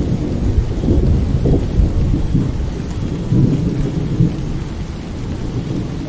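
Thunder rumbling and rolling without a break over steady rain, with crickets chirping in a high, pulsing trill.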